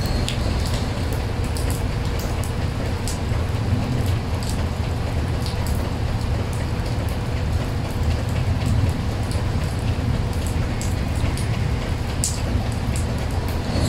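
Rain falling on a puddle on paved ground, with many scattered drop splashes ticking over a steady low rumble.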